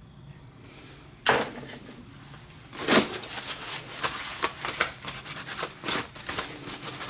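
Tools and small parts handled on a workbench: a single sharp click about a second in, then from about three seconds in a busy run of irregular clicks, knocks and rubbing.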